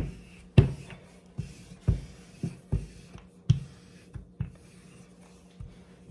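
Wooden rolling pin rolling out cracker dough on a countertop: a series of dull knocks, roughly one every half second to second, as the pin is pushed back and forth and set down, with light rubbing between. A faint steady hum runs underneath.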